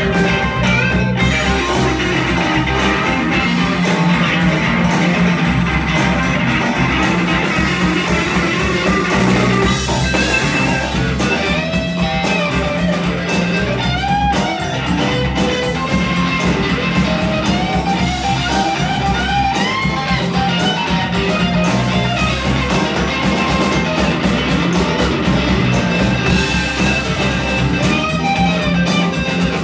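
Live band playing blues-rock, with guitar over a drum kit.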